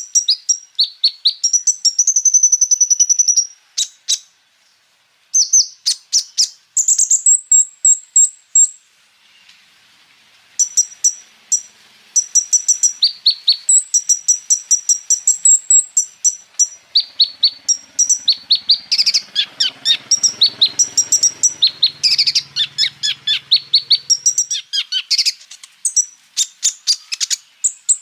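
Kolibri ninja (konin) sunbird singing a fast, high-pitched song of rapid chirps and rolling trills with imitated phrases of other birds, broken by short pauses about four and nine seconds in.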